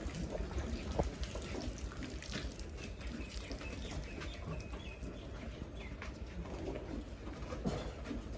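Goats feeding: irregular soft rustling and clicking of fodder, with a few short bird calls.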